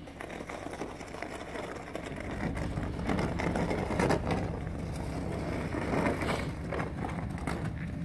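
A snow shovel scraping and pushing snow along a paved driveway, in irregular strokes that grow louder about two and a half seconds in.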